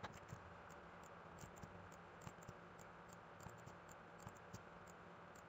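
Near silence with faint, irregular computer mouse clicks.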